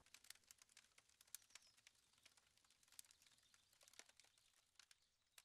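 Wood campfire crackling faintly, with irregular sharp little pops, several a second.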